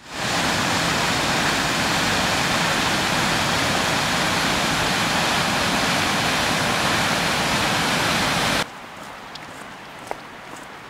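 Waterfall on Johnston Creek: a loud, steady rush of falling water that cuts off suddenly about three-quarters of the way in. After it comes a much quieter trail ambience with a couple of light footsteps.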